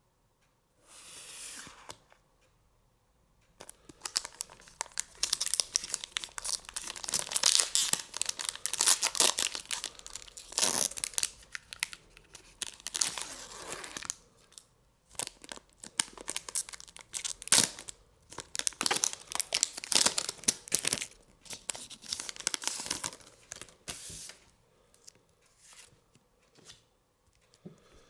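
Foil booster pack wrapper being torn open and crinkled: crackling tears in uneven bursts with short pauses, tapering off near the end.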